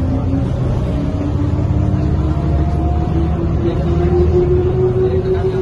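Mercedes-Benz O405N2 city bus under way with its ZF Ecomat 5HP automatic gearbox, heard from inside the passenger cabin: a steady low engine rumble, with a drivetrain whine that rises slowly in pitch as the bus gains speed.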